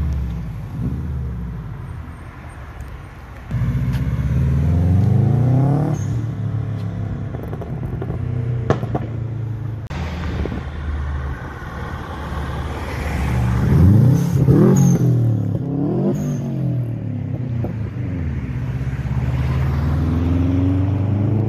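Car engines accelerating hard through the gears, the pitch climbing and dropping back at each shift, several runs in a row with the loudest near the middle. It opens with a blue Subaru Impreza WRX STI's turbocharged flat-four fading as the car pulls away.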